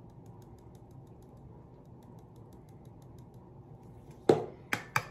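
Faint rapid ticking of glitter being shaken from a plastic shaker jar onto a glue-coated tumbler, over a low hum. Near the end come about three sharp knocks as the jar is put down and the tumbler is handled.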